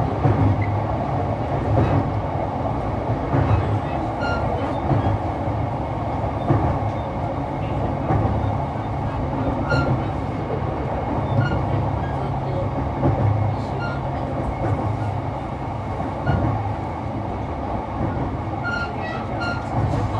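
E233 series 3000 subseries electric multiple unit running at steady speed on the Yamanote freight line. A steady rumble and wheel-on-rail noise comes through, with a regular low thump about every second and a half.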